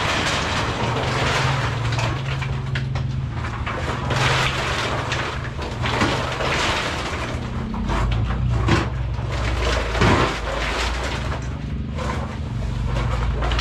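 Split coconut halves cascading off a tipping truck bed onto a slatted drying platform: a continuous clatter of hard shells knocking and sliding, with a few louder knocks. A truck engine runs steadily underneath.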